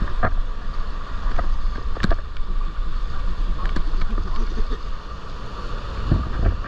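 Steady rush of a creek waterfall's falling water, with wind rumbling on the microphone. A few sharp knocks cut through it, the loudest about two seconds in.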